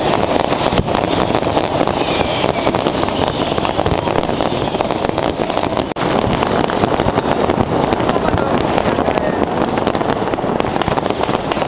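Dense, unbroken barrage of many fireworks and firecrackers going off together across a city: a continuous rush of crackles and bangs with no pause.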